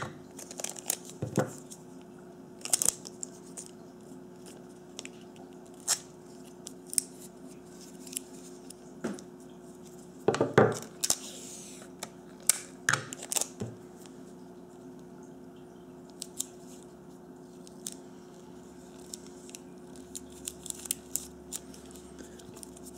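Scotch tape being pulled, torn and pressed around two AA batteries held in the hands: irregular short clicks, crinkles and a few brief rips, over a faint steady hum.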